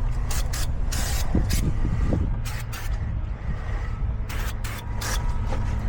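Brake caliper bracket being scrubbed clean of old brake dust and rust, a series of short, irregular scraping strokes over a steady low rumble.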